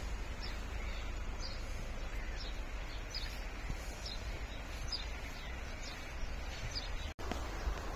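Gulls calling over the river: short high cries repeating every half second to a second over a steady hiss of wind and water, with wind rumbling on the microphone. The sound cuts out for an instant near the end.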